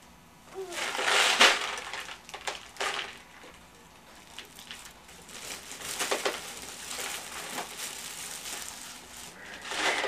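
Clear cellophane basket wrap and plastic Easter grass crinkling and rustling as hands pull at them. It comes in several spells of crinkling, the loudest in the first few seconds.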